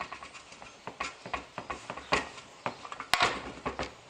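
Irregular clinks and knocks of metal parts being handled as the split halves of a VW engine crankcase are pulled apart, with one sharp knock about three seconds in.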